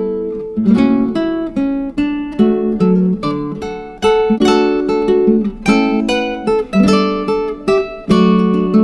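Background music: acoustic guitar playing strummed and plucked chords.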